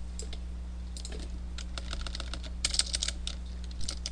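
Computer keyboard being typed on, key clicks sparse at first and then coming in quick runs from about a second and a half in, over a steady low electrical hum.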